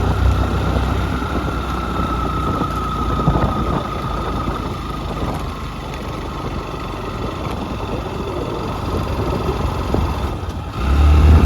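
Motorcycle engine running steadily with a thin steady whine over it; its low rumble eases off about a second in and comes back louder near the end.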